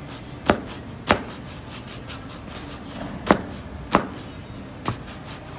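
Shoe-shine cloth snapping against a leather boot as it is buffed to a shine: six sharp pops, roughly half a second to a second and a half apart, with fainter quick strokes between them.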